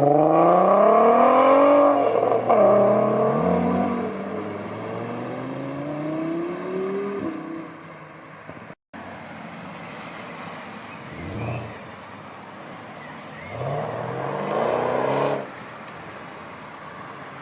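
Tuned performance car accelerating hard: the engine climbs in pitch for about two seconds, drops at an upshift, then climbs again more quietly as the car pulls away. After a brief break, another engine revs up briefly near the end.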